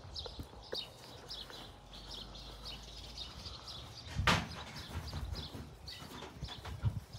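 Small birds chirping repeatedly, a few short high chirps a second, with one loud sharp bang about four seconds in.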